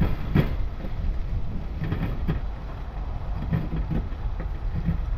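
Sharpened steel striker used as a knife, shaving curls off a stick of fatwood: a series of short, irregular scraping strokes over a steady low rumble.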